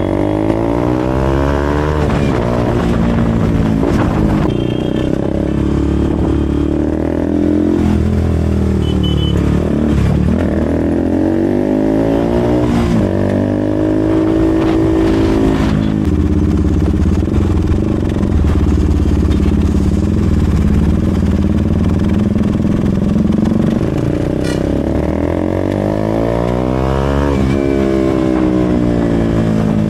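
KTM RC 200's single-cylinder engine running through an SC-Project aftermarket exhaust while riding in traffic. The engine note rises and falls several times as the rider opens and closes the throttle.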